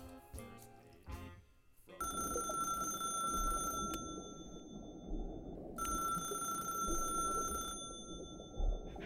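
A snatch of music, then a telephone ringing tone: a steady tone that sounds twice, each ring about two seconds long with a two-second gap, over a steady hiss.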